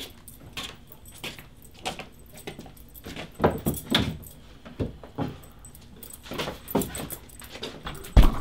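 Scattered light knocks, taps and rattles of hands feeling along metal shelving and a wooden door frame. A loud thump near the end as a hand bumps the camera.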